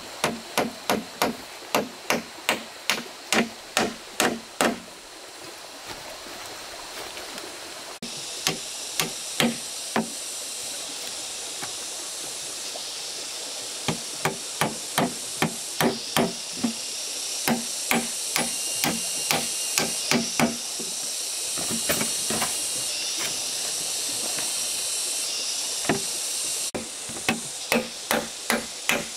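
A hand tool striking wood in runs of brisk, even blows, about two or three a second, with pauses between runs. A steady hiss of flowing water runs underneath.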